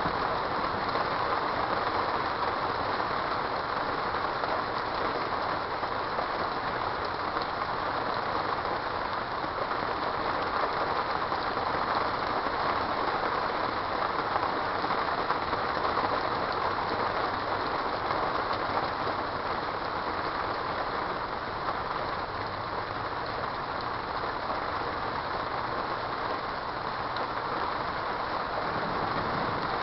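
Rain falling steadily, an even hiss with no breaks or pauses.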